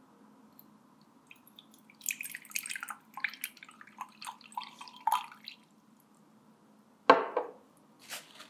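Chamomile water poured in a thin stream into a glass beaker, trickling and splashing for about three and a half seconds. A single sharp knock about seven seconds in, and a smaller tap near the end.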